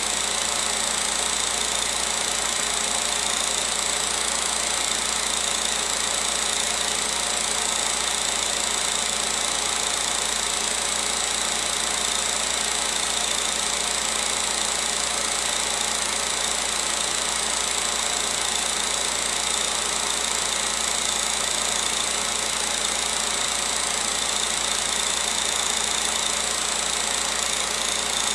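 16mm film projector running, giving a steady, even mechanical noise that does not change.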